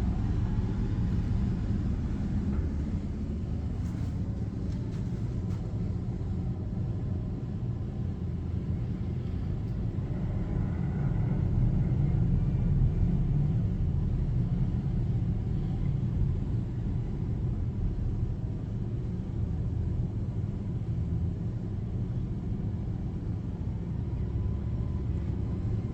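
Front-loader garbage truck's engine running with a steady low rumble, swelling a little about halfway through.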